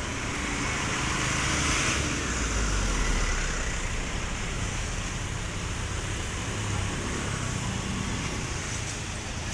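Street traffic: small motorbikes and scooters passing close by, their engines and tyres swelling louder about two to three seconds in.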